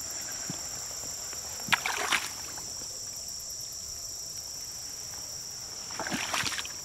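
Insects chirring steadily at a high pitch in a marsh, with two short bursts of rustling and sloshing, about two seconds in and again near the end, as a person pushes through wet marsh grass.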